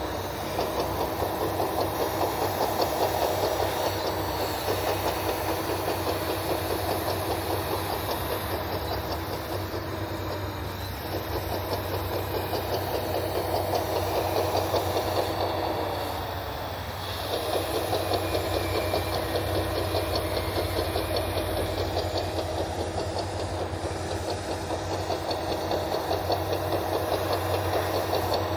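Radio-controlled model Caterpillar D10 bulldozer running: a steady mechanical drone with a fast, even rattle, easing off briefly about eleven seconds in and again around sixteen to seventeen seconds.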